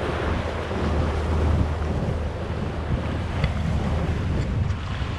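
Motor yacht underway at sea: wind buffeting the microphone and water rushing along the hull over a steady low engine drone.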